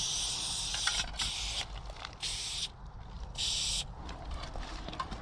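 Aerosol spray-paint can hissing in three bursts: a long one of about a second and a half, then two short ones.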